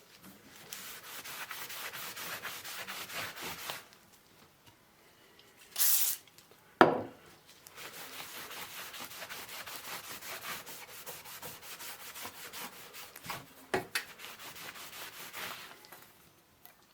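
Hand sanding with sandpaper in quick back-and-forth strokes, in two long spells with a pause between them. A sharp knock comes about seven seconds in.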